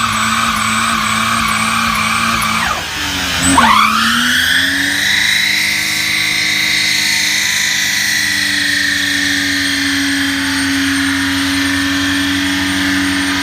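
Car engine held at high revs, dropping sharply in pitch about three seconds in, then climbing back and held at a steady high rev.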